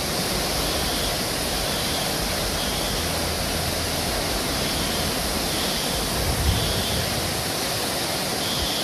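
Steady, loud rush of water, an even noise with no breaks, typical of floodwater pouring through a flooded street.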